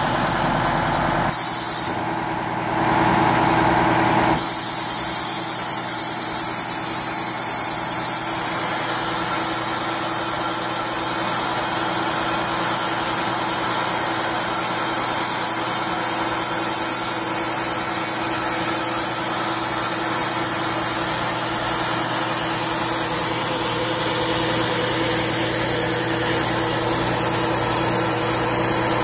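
Oshkosh M1070 tank transporter's diesel engine running steadily at low revs. A brief noisier stretch comes in the first few seconds.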